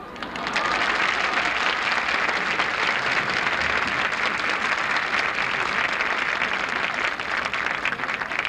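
Audience applauding, swelling up over the first second and then holding steady, easing slightly near the end.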